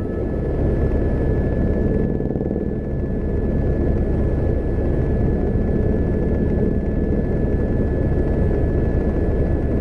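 Steady low rumble of engine, road and wind noise heard from inside a moving car, with a thin steady high tone running through it.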